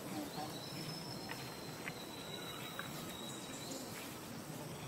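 Faint outdoor ambience with an insect's thin, steady high-pitched drone for about three seconds, and a few soft ticks.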